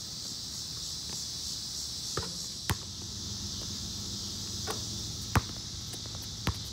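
Steady high-pitched chorus of crickets or similar insects, with a handful of irregular sharp knocks over it; the loudest knock comes about five seconds in.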